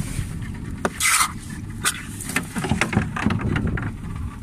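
Low steady rumble on a small boat, with scattered knocks and a short hiss about a second in, as the catch in a plastic crate is handled.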